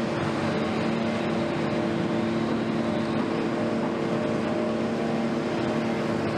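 An engine runs at a steady speed, a constant pitched drone over a background of traffic noise.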